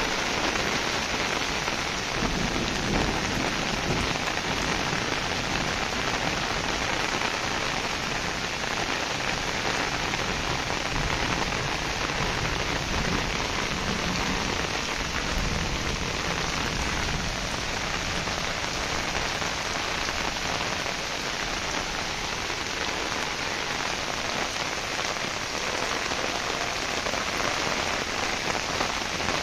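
Heavy downpour of rain falling steadily, a dense, even hiss of drops on the surfaces.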